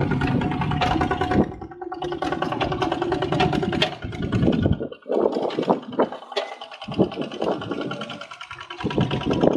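Single-cylinder Kubota ZT155 diesel engine of a walking tractor running steadily under load as it pulls a plough and cage wheels through flooded paddy mud, its rapid firing beat dipping about five seconds in and then carrying on thinner and more uneven.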